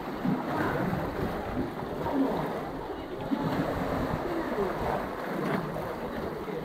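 Sea waves surging into a narrow limestone rock channel, the water washing and sloshing over the rocks.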